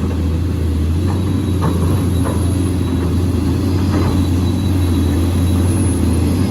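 Heavy diesel truck engine running close by, a loud steady low drone with no change in pitch.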